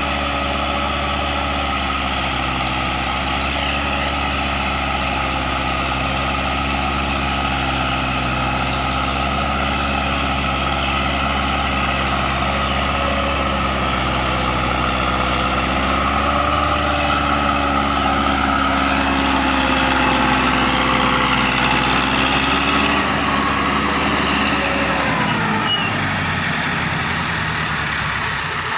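Farm tractor's diesel engine running steadily as it pulls a rotary tiller bed-former through the soil, its pitch wavering slightly. Near the end the engine's pitch falls as the revs drop.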